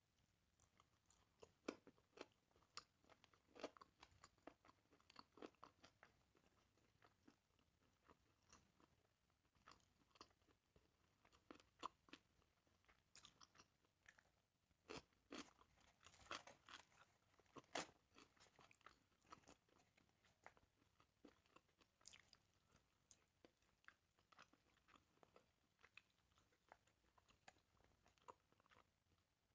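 Faint, close chewing: a person eating grilled chicken and flatbread with wet mouth clicks and smacks, and crunchier bites of raw cucumber, strongest around the middle.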